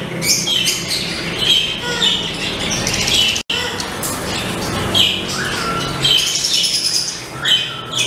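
Chatter of many caged birds: repeated short, high chirps and squawks overlapping throughout, over a low steady hum. The sound breaks off for an instant about three and a half seconds in.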